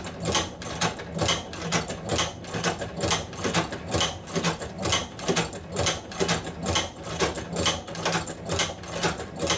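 Cowboy OUTLAW hand-crank leather sewing machine stitching through three layers of heavy tooling leather, its handle worked down and up. It makes a steady run of mechanical clicks and clacks, about two a second.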